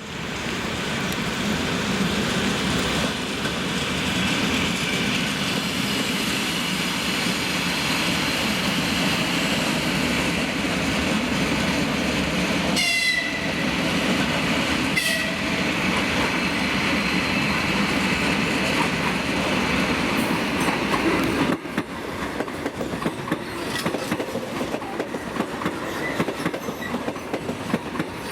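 EG2Tv 'Ivolga 4.0' electric multiple unit running through a station and crossing the points, with a continuous rumble and clacking of its wheels over the rail joints. About halfway through, two short high horn toots sound about two seconds apart. The noise drops abruptly about three-quarters of the way through.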